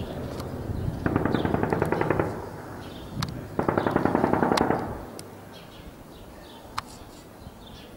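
Two long bursts of rapid automatic gunfire, each lasting about a second, with a few single sharp shots between and after them.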